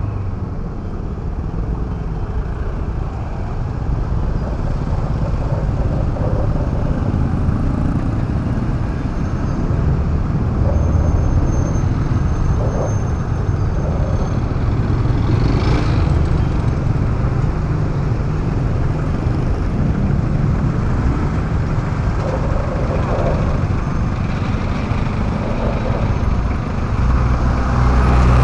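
Motorcycle riding through city traffic: the engine's steady low hum mixed with road and wind noise and the sound of other traffic around it.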